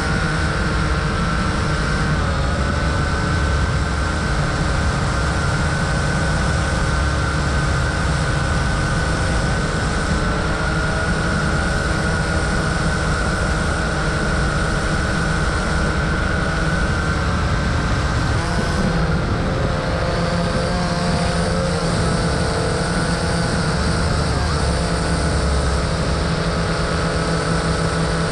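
Vivitar 360 Sky Eye View quadcopter's motors and propellers whining steadily in flight, heard close up from a GoPro mounted under the drone. The pitch wavers a little about two-thirds of the way through as the drone manoeuvres.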